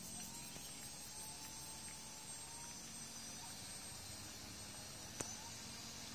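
Small motor and propeller of a radio-controlled model seaplane buzzing faintly as it taxis on its floats across the water, the pitch rising a little near the start and then holding steady. A single sharp click about five seconds in.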